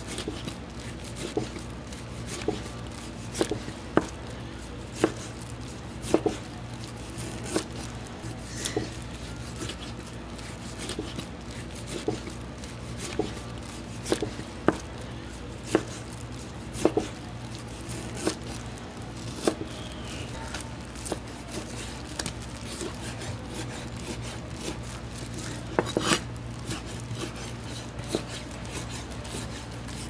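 Long kitchen knife slicing a skate wing into thin strips on a cutting board. The blade knocks on the board about once a second, with a quick run of knocks near the end, over a steady low hum.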